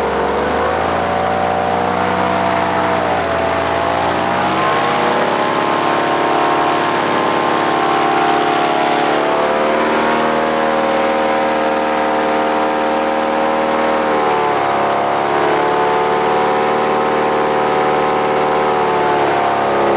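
Airboat engine and propeller running loud, its pitch dipping and rising several times as the throttle is eased and opened again.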